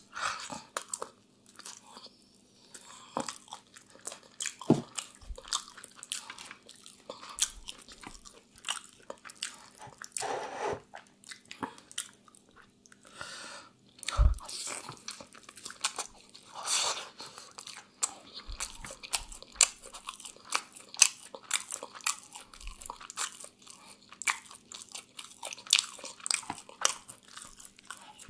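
Chewing and biting grilled chicken close to the microphone: irregular crunches and wet mouth clicks.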